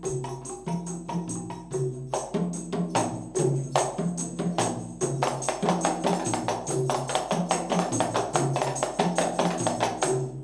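Qasidah music: tambourines struck and shaken in a fast, steady rhythm over a low bass line that steps between a few notes. The music cuts off abruptly near the end.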